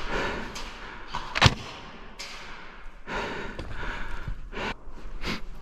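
Rustling of a player's gear and shuffling on debris, with one sharp crack about a second and a half in and a couple of fainter clicks near the end.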